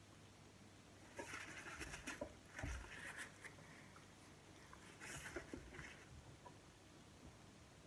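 Paper napkin rustling and crinkling in a few short bursts as it is picked up and wiped across the mouth, with a soft low thud in between, over faint chewing of boiled corn.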